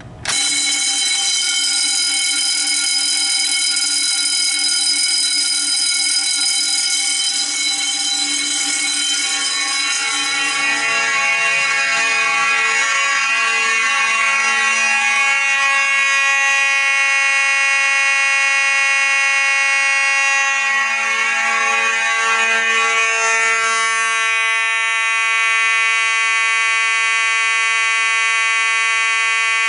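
Fire alarm notification appliances on a test system sounding together in one continuous, steady alarm that starts just after the opening. The blend of tones shifts about ten seconds in and again about 24 seconds in, when the lowest tones drop away.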